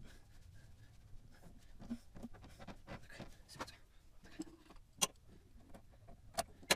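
Small handling noises from parts and tools being moved in a car's engine bay: faint scattered ticks and rustles, with three sharp clicks, one about five seconds in and two close together near the end.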